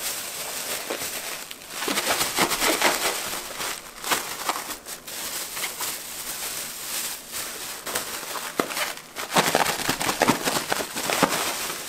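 Plastic bag crinkling and rustling as it is shaken with pond smelt and frying powder inside, coating the fish. The crinkling comes in bouts, loudest about two seconds in and again near the end.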